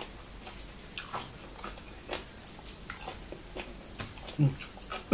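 A person chewing food close to the microphone: irregular wet mouth clicks and smacks, with a short hum about four seconds in.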